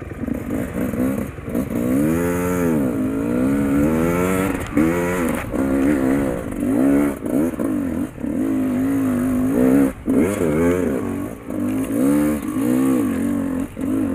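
Enduro dirt bike engine close up, revving up and down again and again, its pitch rising and falling with each opening and closing of the throttle.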